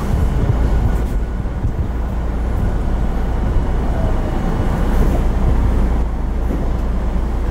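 Unrenovated Tokyo Metro 02 series subway car with Toshiba IGBT-VVVF inverter control, heard from inside the car while running: a loud, steady rumble of wheels and traction motors, with a faint falling whine partway through.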